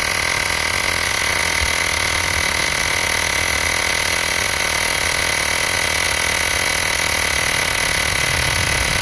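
Xiaomi portable electric air compressor running steadily as it pumps up a car tyre, a fairly loud even buzz with a constant high tone. The pressure is climbing toward its preset 35 PSI.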